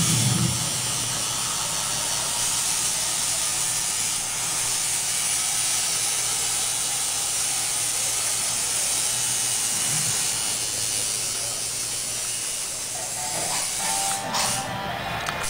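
A steady hiss with a low hum underneath, even in level throughout.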